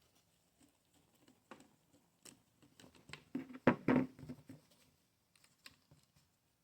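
Light clicks and knocks of a hand wrench working on stubborn screws in a vintage Black & Decker jigsaw, with a louder cluster of knocks about four seconds in.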